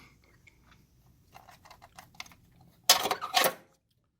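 Wrench and hand tools clinking against metal: a string of light clicks, then a short louder clatter about three seconds in.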